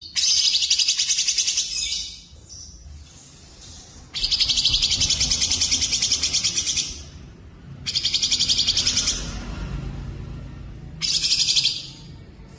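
Songbird song used as a training track, mixing cucak jenggot, cililin and canary: four bouts of very fast, high trills separated by short pauses.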